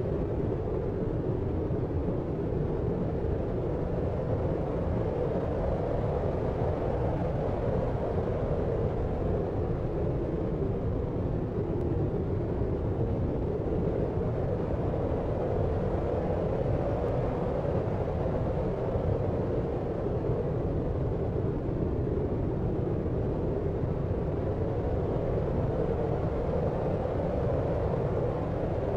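Steady deep sleep-aid noise, a continuous low rumbling hiss with most of its energy in the lows and little in the highs.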